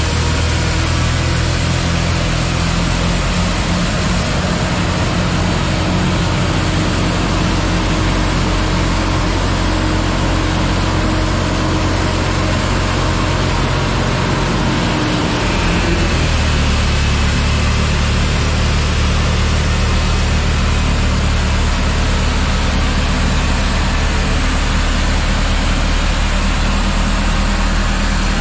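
John Deere wheel loader's diesel engine running steadily, driving its front-mounted snowblower, with a continuous rush of snow blown up the chute into a dump trailer. The engine note shifts about halfway through.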